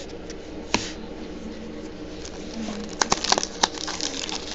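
Foil trading-card pack wrapper being torn open and crinkled by hand, a rapid crackling that starts about three seconds in, after a single card click about a second in.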